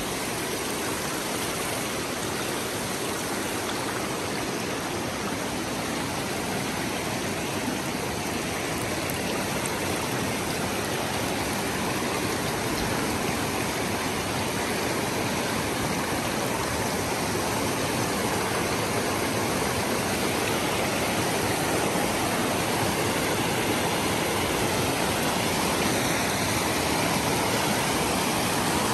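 A shallow mountain stream rushing and splashing down over rocks, a steady noise of running water that grows a little louder toward the end.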